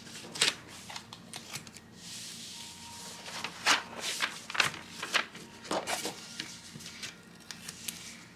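Large sheets of drawing paper being handled: rustling and sliding as they are lifted and laid down, with several sharper paper flaps, the clearest about half a second in and then between roughly three and six seconds.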